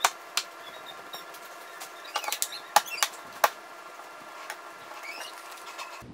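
Sharp clicks and knocks at irregular times, most of them in the middle, over a faint steady hum: handwork on an in-wall speaker being fitted into drywall.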